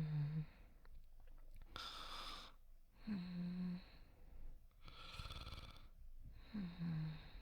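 A person snoring softly: a short, falling, buzzy snore about every three seconds, three in all, with a long airy breath between each.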